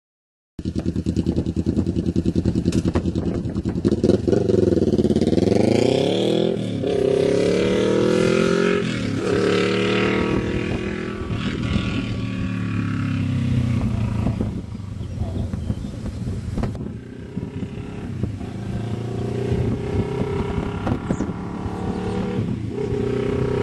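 2007 Kawasaki Ninja 650R's parallel-twin engine running through a Leo Vince SBK slip-on exhaust as the bike is ridden, the engine note rising and falling repeatedly as it revs up and eases off.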